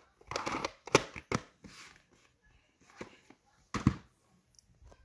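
A VHS cassette and its plastic case being handled: a brief rustle, then a few sharp plastic clacks, the loudest about a second in and another near four seconds.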